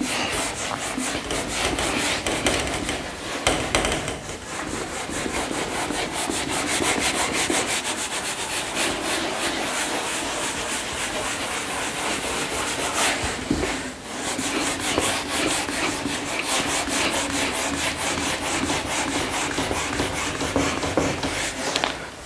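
A board eraser rubbed back and forth across a classroom board, wiping off written working in continuous scrubbing strokes, with a brief pause about fourteen seconds in.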